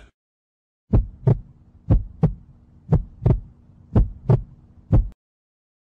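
Heartbeat sound effect: paired lub-dub thumps about once a second over a faint low hum, starting about a second in and stopping with a last single thump near the end.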